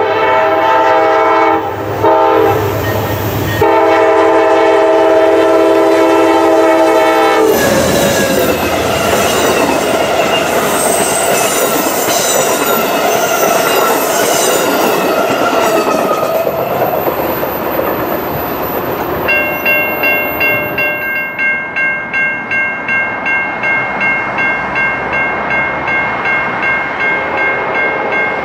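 An Amtrak diesel locomotive's multi-chime horn blows, broken twice in the first few seconds and then held, and cuts off as the locomotive passes at speed. The passenger cars rush past with wheels clicking over the rail joints, fading out. A grade crossing's electronic bell then dings steadily, about twice a second, while the gates come down.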